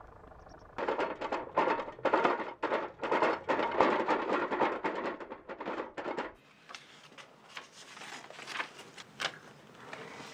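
A wheelbarrow loaded with scrap metal clattering and rattling as it is pushed along a road, with footsteps, for about five seconds. It then cuts off sharply to a quiet room with a few scattered knocks.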